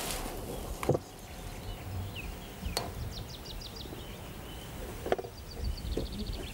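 Outdoor riverbank ambience with a small bird giving quick high trills twice. A few sharp clicks come from the hook and landing net as a bream is handled and unhooked.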